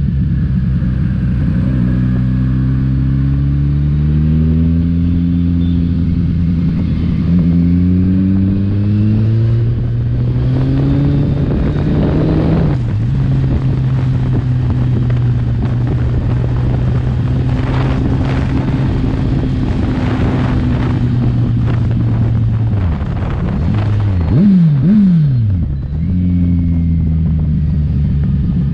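Kawasaki Ninja 1000's inline-four engine accelerating through several gears, its pitch climbing and dropping back with each upshift, then holding a steady cruise. Near the end it drops off, gives two quick revs, and pulls away again.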